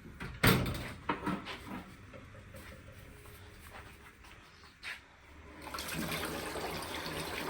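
A sharp knock and a few small clatters of kitchen utensils, then a tap turned on with water running steadily from about six seconds in.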